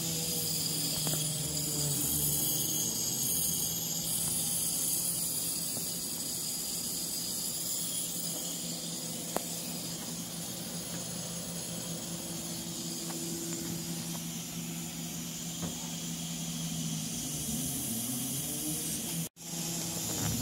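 Steady hiss of a 50-watt CO2 laser cutter's air assist over a steady low machine hum from the laser's fan and cooling gear. All sound cuts out briefly about a second before the end.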